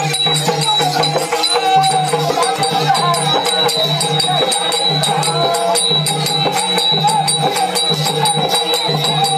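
Devotional folk music, coming in abruptly, with a steady low drum beat a little over once a second under fast rattling percussion and a melody line.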